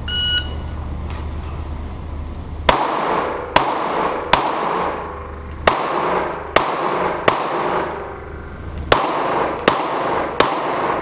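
Shot timer start beep, then nine pistol shots fired in three strings of three, each ringing off the walls of an indoor concrete range.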